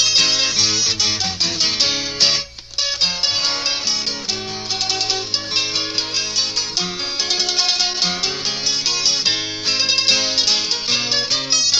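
Mandolin and guitar duet: the mandolin plays the melody over plucked guitar accompaniment, with a brief break in the music about two and a half seconds in.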